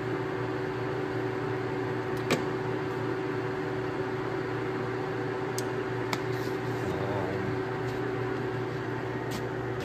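LeBlond Regal Servo Shift engine lathe running steadily with its carriage power feed engaged: an even mechanical hum holding several steady tones. There is one sharp click about two seconds in and a few fainter ticks later.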